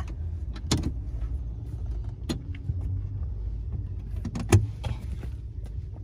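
Low, steady rumble of a Toyota's engine heard from inside the cabin, with a few sharp knocks and clicks in the car; the loudest knock comes about four and a half seconds in.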